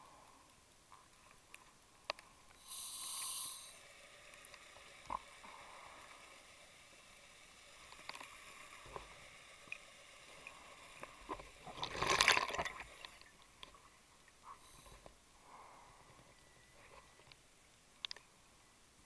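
Underwater sound of a diver's breathing gas: a short hissing burst of bubbles about three seconds in and a louder bubbling burst around twelve seconds, with scattered clicks and taps of dive gear.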